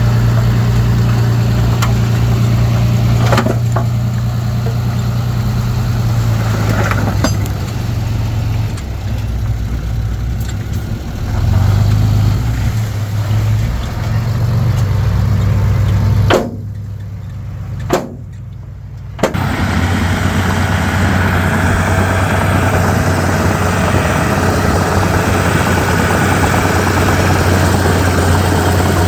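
Komatsu D31P crawler bulldozer's diesel engine running under work, with a steady low hum. A little past the middle it drops away sharply for about three seconds, then comes back steadier.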